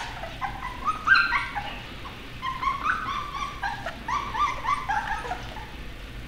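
A litter of Slovensky Cuvac puppies whimpering and squeaking, many short high calls overlapping one another, thinning out near the end.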